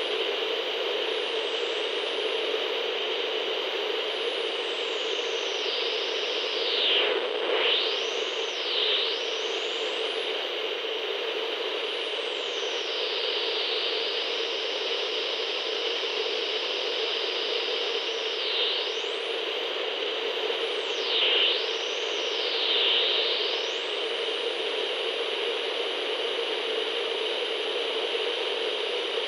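Radio being tuned across the dial: a steady hiss of static with whistling tones that sweep up and down in pitch several times as the tuning passes between signals. Near the end a high whistle holds steady for a few seconds, then falls away.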